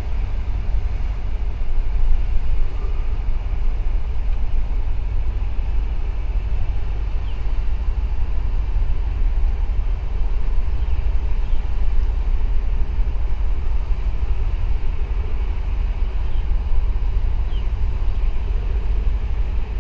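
Wind buffeting the microphone: a loud, steady, gusting low rumble, with a few faint short high chirps.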